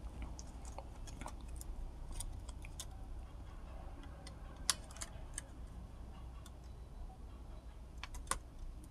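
Faint scattered clicks and taps of fingers handling a laptop's flex-cable connector on the motherboard, with one sharper click about halfway through, over a low steady hum.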